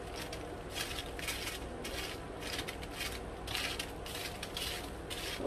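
Aluminium foil pan crinkling and crackling in short, irregular bursts as roasted potatoes are picked off it by hand.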